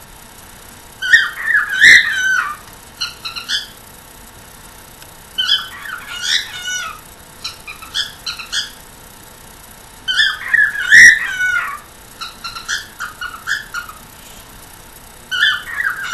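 Pet cockatiel calling in a repeated phrase: a loud burst of rapid, pitch-bending notes, then a run of short chirps, coming round about every four and a half seconds.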